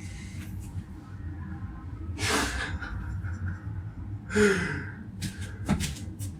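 Two short, breathy gasps, one about two seconds in and a louder one just past four seconds, then a few sharp clicks.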